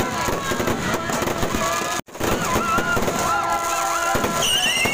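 Fireworks going off, dense crackling and popping without pause, with many high whistling tones gliding and wavering over them. The sound cuts out for an instant about two seconds in.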